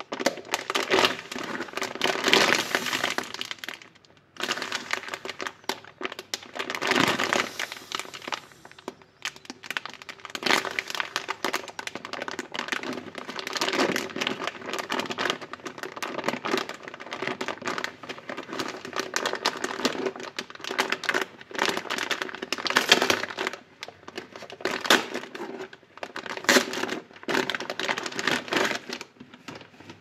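Clear plastic zip bag crinkling and crackling in irregular bursts as rubber-gloved hands squeeze and turn a new, dry sponge inside it.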